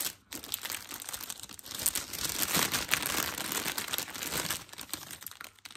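Clear plastic sweet cone bag crinkling and crackling as it is handled while confetti is added. The crinkling is busiest in the middle and dies away near the end.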